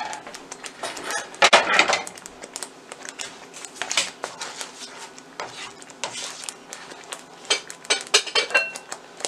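A black plastic spoon stirring thick gravy in a nonstick pan, scraping and knocking against the pan at irregular moments.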